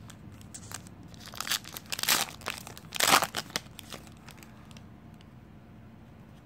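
Foil trading-card pack wrapper crinkling and rustling as it is ripped open and pulled off the cards, in a run of loud rustles between about one and three and a half seconds in, then only faint handling of the cards.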